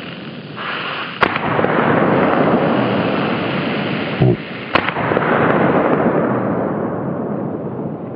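Ground firework fountain hissing steadily as it sprays sparks, with two sharp cracks, about a second in and near the middle, and a short low thump just before the second crack.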